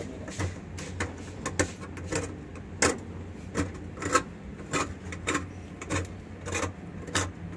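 Hand tool scraping a part inside a top-loading washing machine in repeated strokes, about one every 0.6 s, clearing built-up crud after years of use.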